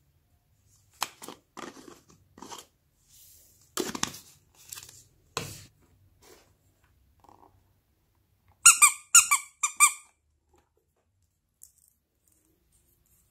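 Purple foam beads poured from a glass jar onto glossy slime, heard as a few short rustling, crackling pours. Later comes a quick run of about five sharp, high squeaks, the loudest sounds.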